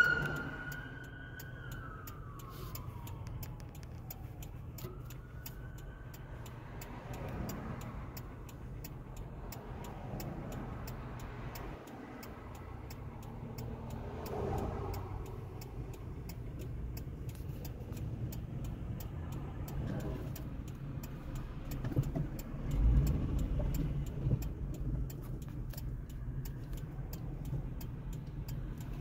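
An ambulance siren winds down in falling wails over the first few seconds. Then comes the low, steady hum of a car idling at a stop, with a turn signal ticking evenly throughout and traffic rumbling past, loudest a little past two-thirds of the way in.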